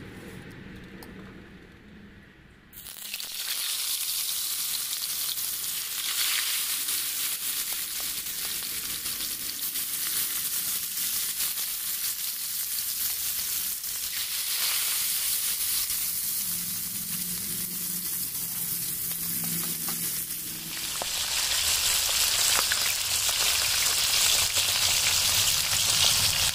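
Round scad (galunggong) frying in hot oil in a wok, a steady sizzle. It starts abruptly about three seconds in and grows louder near the end.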